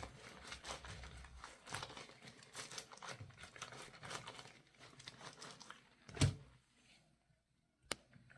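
Hands squeezing and rubbing wet, soapy laundry: a run of crackling, squishy rustles. About six seconds in there is a louder thud, then a short pause and a sharp click near the end.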